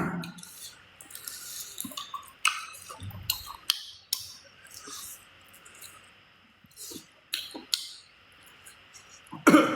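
Scattered wet clicks and smacks of someone eating extra-spicy duck wing mids off the bone, with a louder burst near the end.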